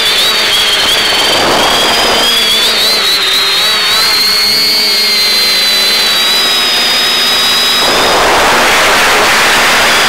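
Quadcopter's electric motors and propellers in flight, heard over the FPV video downlink: several close high whining tones that waver in pitch together, over a hissing rush that swells about eight seconds in.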